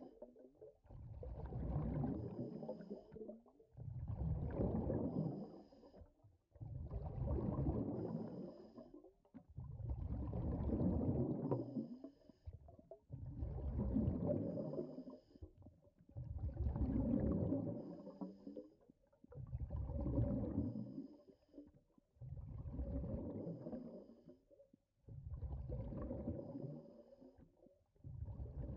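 Underwater ambience sound effect: a low whooshing swell of water that rises and fades about every three seconds.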